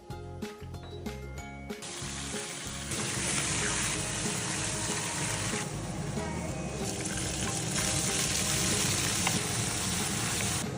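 Food sizzling as it fries in hot oil, starting about two seconds in, over background music.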